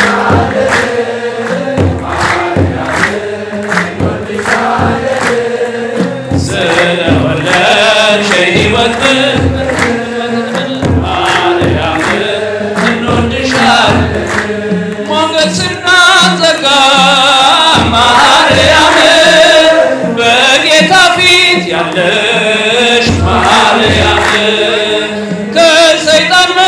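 Congregation singing an Ethiopian Orthodox mezmur (hymn) together to a kebero drum and hand-clapping, keeping a steady beat; the singing grows louder about halfway through.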